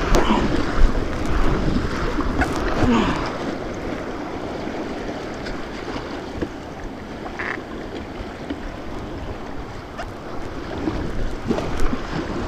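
White-water rapids rushing, with wind buffeting the microphone and a few sharp knocks. The noise is louder for the first few seconds, then settles lower.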